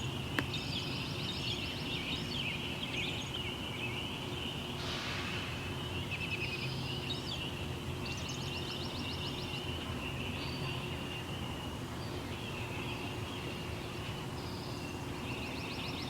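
Songbirds singing a dawn chorus: short rapid trills repeat every few seconds over a steady, high-pitched bed of birdsong, with a brief rushing swell about five seconds in.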